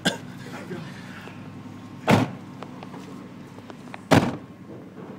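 Pickup truck doors slamming shut twice, about two seconds apart, over a steady low hum.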